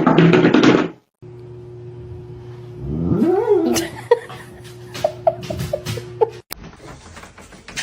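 A loud rush of noise in the first second, then a cat meows once, a drawn-out call that rises and falls in pitch, about three seconds in, over a steady hum.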